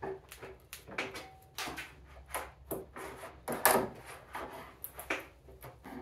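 A metal hand tool prying the hardboard backing off a wooden mirror frame: irregular clicks, scrapes and wooden knocks as the back is worked loose. The loudest knock comes a little past halfway.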